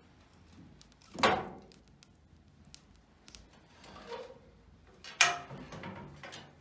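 Metal clanks at a wood-burning stove: a loud knock about a second in as the fire is stirred with a poker, then the cast-iron firebox door swung shut with a ringing clang about five seconds in.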